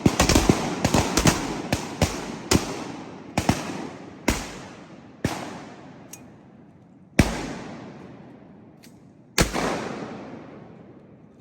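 A volley of shotgun blasts from several hunters firing at once: a rapid flurry of shots at first, then single shots spaced a second or two apart, each one trailing off in a long echo.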